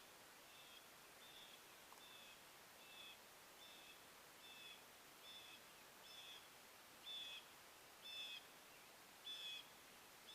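A bird calling a short, high note over and over, about once every three-quarters of a second, with the last few notes louder.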